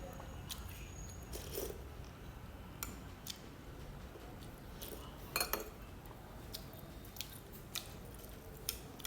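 Close-miked mouth sounds of a person chewing and biting food: scattered small wet clicks, with a louder cluster of clicks about five and a half seconds in.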